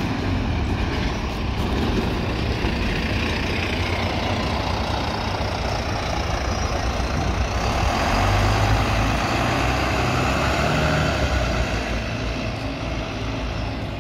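Double-decker bus's diesel engine running as the bus passes close by and pulls away, loudest about eight seconds in, then fading as it drives off near the end.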